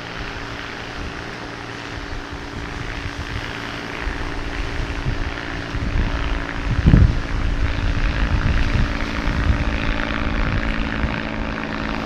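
Steady engine hum that grows louder from about four seconds in, with gusts of wind on the microphone, the strongest about seven seconds in.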